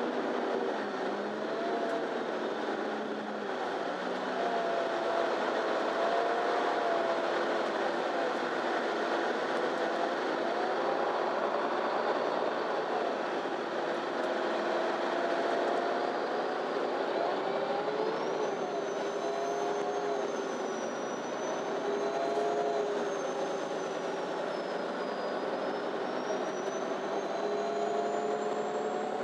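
Inside a MAN Lion's City Ü (NÜ 323) bus under way: steady engine, drivetrain and road noise, with whining tones that rise and fall as it speeds up and slows. A thin high whine comes in a little past the middle and climbs near the end.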